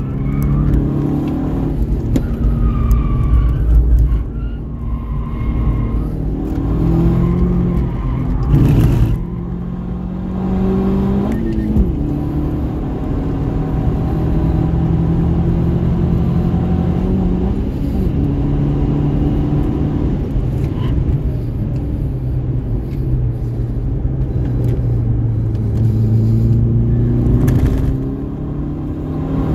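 2003 Subaru Impreza WRX STI's turbocharged flat-four engine at speed on a race track, its pitch climbing and dropping again and again as the car accelerates through the gears and slows for corners.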